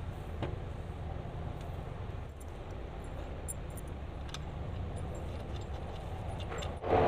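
Small metal clinks of a steel washer, bolt and nut being handled and fitted through a bearing in a brake disc, over a steady low hum. Just before the end a much louder, steady running sound cuts in suddenly.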